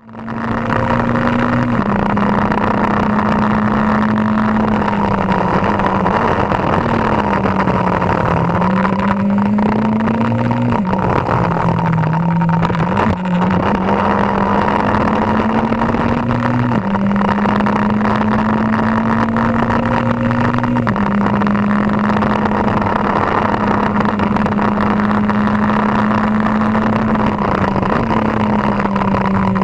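Formula 4 single-seater's engine heard onboard at racing speed. Its note climbs slowly through each gear and drops sharply at each upshift, several times over, with a couple of dips where it slows for corners.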